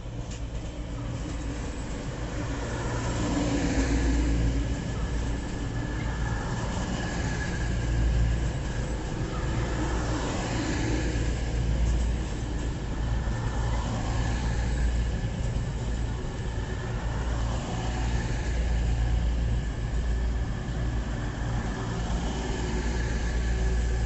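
Diesel train's engine running, a steady low rumble with a faint high whine, swelling and easing in loudness.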